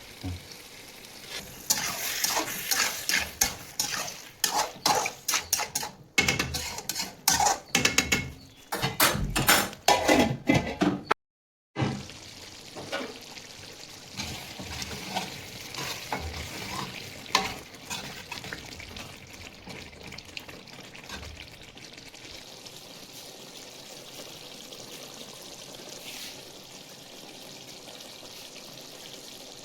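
Chicken frying in onion-tomato masala in a pan, with a spoon stirring and scraping it in rapid, loud strokes. After a short break about eleven seconds in, a steadier sizzle follows, with only an occasional clink of the spoon.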